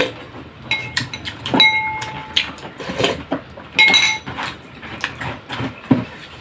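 Spoon and fork clinking and scraping against a ceramic plate and bowl while eating. There are several sharp clinks, a few of them ringing briefly, and softer knocks in between.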